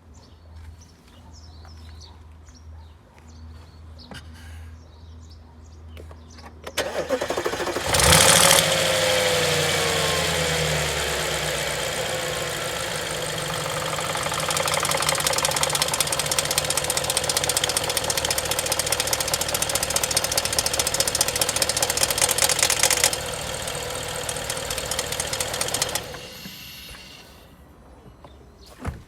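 Audi A8 D4 engine starting about eight seconds in, with a falling whine as it catches, then running with a fast metallic clatter before it is shut off near the end. The knock is from worn cam phasers (variable valve timing adjusters).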